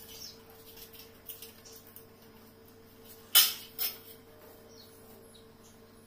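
Welded wire mesh and a metal straight-edge bar being handled and bent on a tile floor: a few light ticks, then two sharp metallic clanks about half a second apart a little past the middle. Faint bird chirps in the background.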